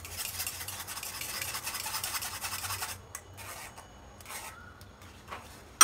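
A spoon rubbing thick yogurt batter through a steel wire-mesh strainer to press out lumps. It makes a steady scraping for about three seconds, then a few fainter scrapes.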